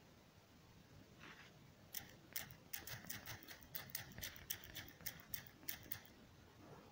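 Typing on a smartphone's touchscreen keyboard: a quick run of light clicks, about five a second. The clicks start about two seconds in and stop about a second before the end.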